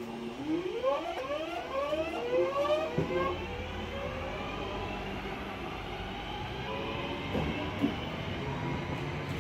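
Electric multiple unit pulling away: its traction motors give a rising whine that climbs in steps over the first few seconds, then the low rumble of the carriages rolling past close by, with a couple of sharp wheel clicks near the end.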